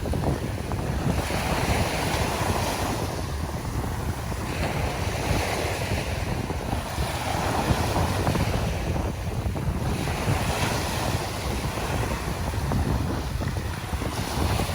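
Ocean surf breaking and washing up the beach, the hiss swelling and ebbing every few seconds, with wind buffeting the microphone as a low rumble.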